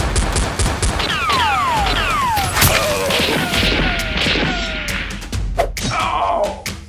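Action-film soundtrack: music mixed with sound effects of crashing hits and several quick falling whistle-like glides, one after another, in the first few seconds.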